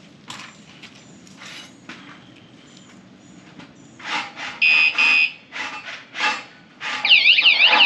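Guardian catalytic converter alarm going off: two short, loud, high beeps about halfway through, then its warbling siren starts near the end, sweeping rapidly up and down. The alarm trips on any vibration or tap.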